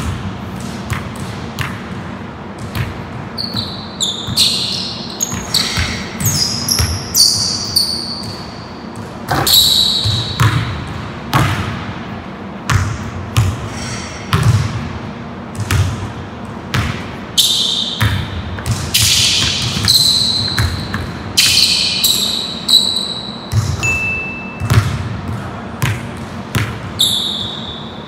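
Basketball bouncing on a hardwood gym floor, dribbled in a run of thumps, with short high-pitched sneaker squeaks from players cutting on the court. The sounds echo around a large hall.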